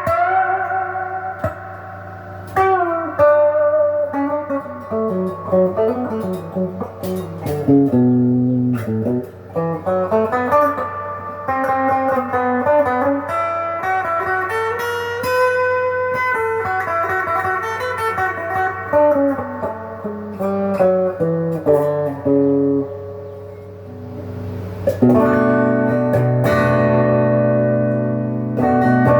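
Epiphone Les Paul Jr. electric guitar through a Crate amp and a Sweet Cream overdrive, playing single-note lead lines with bends and vibrato, then ringing chords near the end. The guitar's volume is rolled back, so the overdrive is cleaned up.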